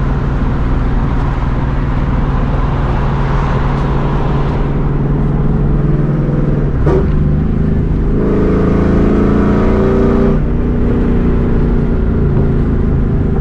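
A 2004 Mustang GT's 4.6-litre V8 running through a Borla ATAK cat-back exhaust, heard from inside the cabin while cruising at light throttle, the gentle everyday driving that keeps this exhaust quiet. A short click comes about seven seconds in, then the engine note grows louder for about two seconds before settling back.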